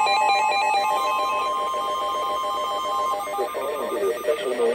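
Emergency Alert System alert tones: a steady tone held over a fast, warbling pattern of stepping tones. The tones stop about three seconds in, and a voice announcement starts just after.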